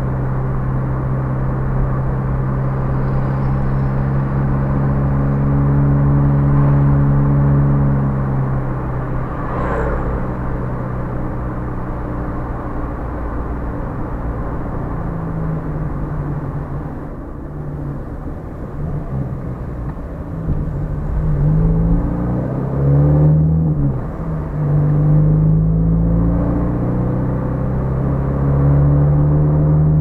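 Car engine and road rumble heard from inside the cabin. A steady engine note holds for the first several seconds, then in the second half the engine pitch rises and falls several times as the car speeds up and slows.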